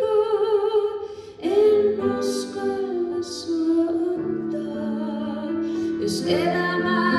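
A woman singing a slow song in Finnish, accompanying herself on an upright piano. Her held notes waver in pitch; about a second in the sound briefly drops away, then a new phrase starts with fresh piano chords.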